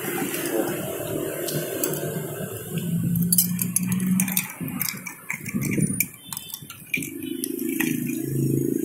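Spoons and ice clinking in drinking glasses, with a quick flurry of light clinks a few seconds in, over low background voices.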